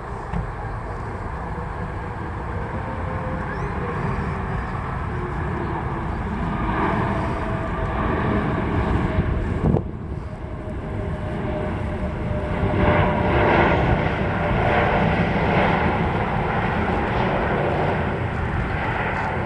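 Jet airliner engines close by: a steady rumble that builds and is loudest about two-thirds of the way in.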